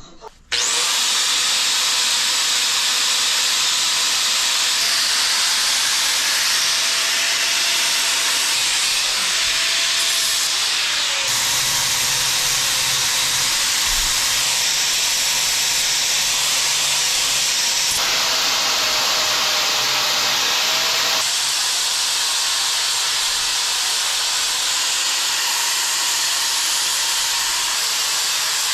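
Angle grinder grinding mill scale off the edges of steel angle iron to prepare it for welding: a steady, harsh grinding hiss that starts about half a second in, with a faint whine that wavers in pitch now and then.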